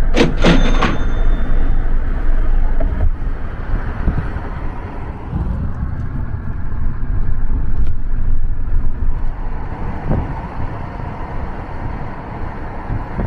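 Road noise heard from inside a moving car: a steady low rumble of tyres and engine, with a brief sharper sound right at the start.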